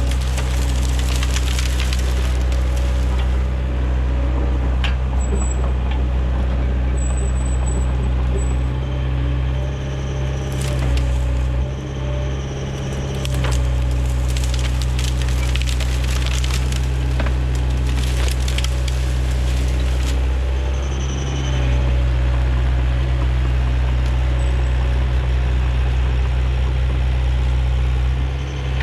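Excavator's diesel engine running steadily under load, with bursts of crackling and snapping as brush is handled.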